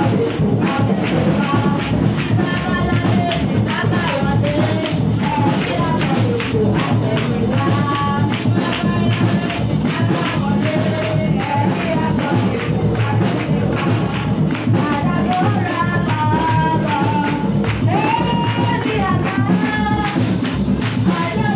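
Church worship music: tambourines shaken in a steady rhythm under a group of voices singing.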